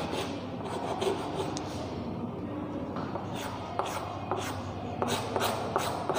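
Chalk rubbing and scraping on a chalkboard in short back-and-forth shading strokes, which come more sharply and quickly in the second half.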